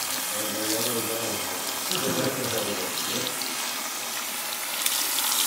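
Salon handheld shower sprayer running water onto hair over a backwash basin: a steady hiss of spraying water as dye is rinsed out.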